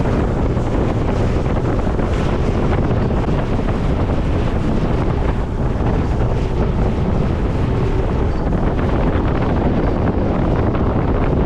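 Wind buffeting the microphone in a loud, steady rumble, with the sound of a boat moving through the water underneath.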